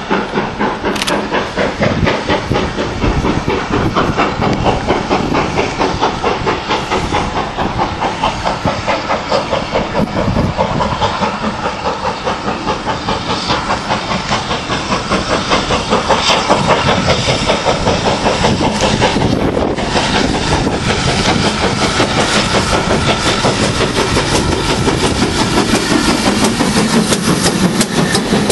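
GWR steam locomotive working a train, with rhythmic exhaust beats and hissing steam. It grows a little louder in the second half as the engine draws close and passes.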